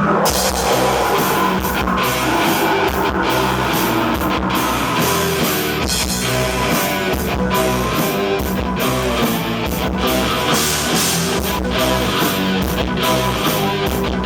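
Black metal band playing live: distorted guitars and bass with keyboards over fast drumming, the full band coming in hard right at the start.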